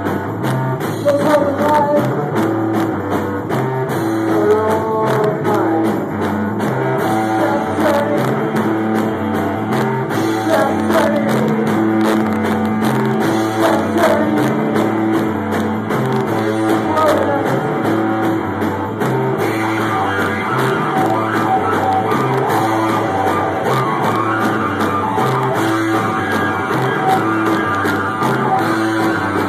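Live band playing loud rock music on drum kit, bass and electric guitar, with a singer's vocals, heard from among the audience.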